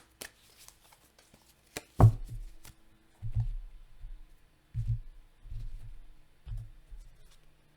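A deck of oracle cards being handled and knocked on a table: a few light card clicks, then five dull thumps, the loudest about two seconds in.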